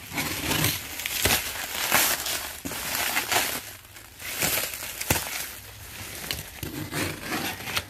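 Blue plastic pallet cover and clear stretch wrap crinkling and rustling in irregular bursts as they are sliced with a box cutter and pulled back off the boxes.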